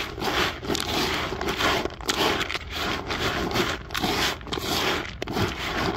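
Hand mixing a bucket of small feed pellets in a plastic groundbait bowl, the pellets freshly wetted with a liquid attractant: crunching and scraping in repeated strokes, a little under two a second.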